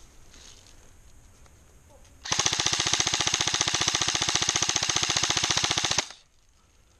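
Airsoft gun firing one sustained full-auto burst of rapid, evenly spaced shots. It starts about two seconds in, lasts roughly three and a half seconds and cuts off suddenly.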